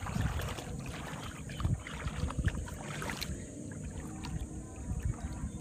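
Shallow seawater sloshing and splashing in small irregular bursts as a small child wades through it, over a low rumble of wind on the microphone.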